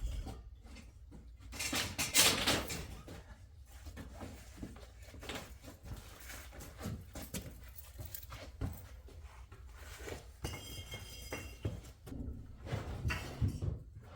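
Irregular knocks, scrapes and rustling from hands moving things about, louder about two seconds in, with a brief ringing tone about three-quarters of the way through and a cluster of knocks near the end.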